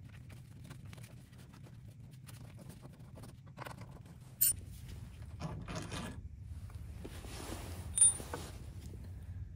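Hand tool working loose the mounting hardware of a snowblower carburetor: small rapid clicks and scrapes of metal, with rustling of handling. There is a sharp metal clink about four and a half seconds in, and a louder, ringing clink about eight seconds in.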